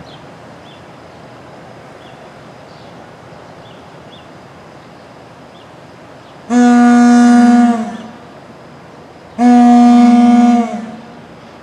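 Clark Cooper fire-alarm horns giving two honks a couple of seconds apart, each a steady tone about a second and a half long that sags in pitch as it dies away: the coded honks that sound a fire call.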